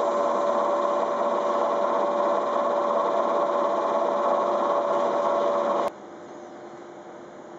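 A stationary 583 series train's cab-car motor-generator and blowers running behind the side louvres, a loud steady whine over a hiss. About six seconds in it cuts off suddenly to a much quieter steady hum.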